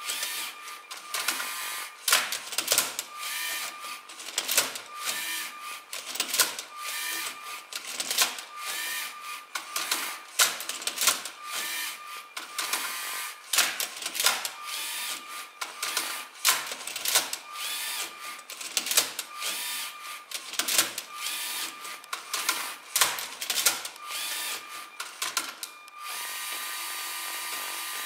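LEGO SPIKE Prime robot solving a Rubik's Cube: its motors whir in short, repeated runs as the arm tilts the cube and the turntable twists it, with frequent plastic clacks and knocks from the cube and the LEGO parts. The whirring and clacking stop about two seconds before the end, leaving a steady hiss.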